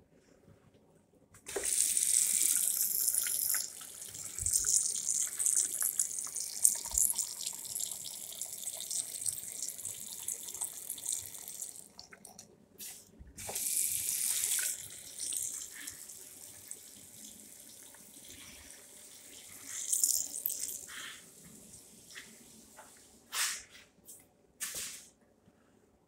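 Tap water running into a small Armitage Shanks wall-mounted ceramic basin, splashing toward the drain. It starts about a second and a half in, loud at first and then settling to a quieter flow. It stops briefly near twelve seconds, starts again loud and tapers off, with a few short splashes near the end.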